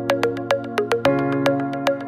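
Background music: an electronic synthesizer tune of quick plucked notes, about five a second, over held chords that change about a second in.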